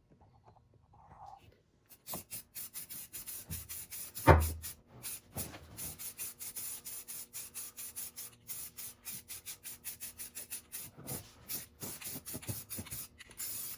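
Sandpaper rubbed by hand over a repaired car body panel in quick back-and-forth strokes, starting about two seconds in. There is one thump about four seconds in.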